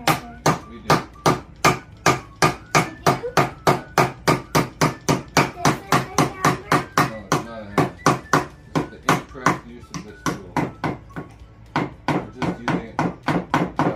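Hammer striking a wooden birdhouse in rapid, steady taps, about three a second, to drive a fitted piece into its front; the taps pause briefly after about ten seconds and then resume.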